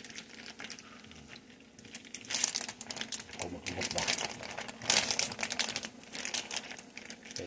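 Plastic zip-top bag of meat in marinade crinkling as it is squeezed and turned by hand to work the marinade into the meat, in irregular bursts of rustling that get busier about two seconds in.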